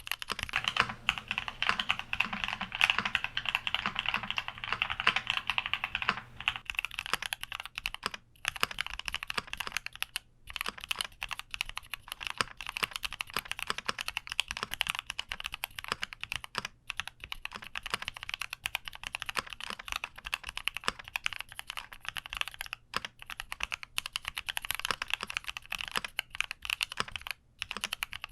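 Typing on a Keychron Q60 aluminium-case mechanical keyboard: a fast, continuous patter of keystrokes with a few short pauses.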